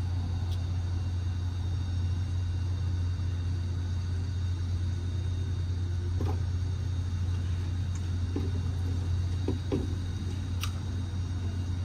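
A steady low drone of an idling engine, with a few faint, short knocks in the second half.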